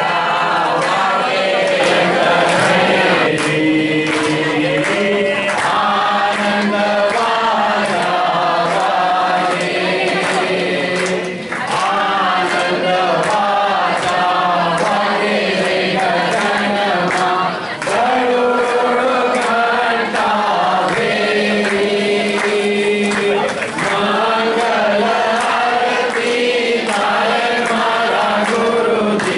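A large group singing a devotional bhajan together, with hand clapping along to the singing.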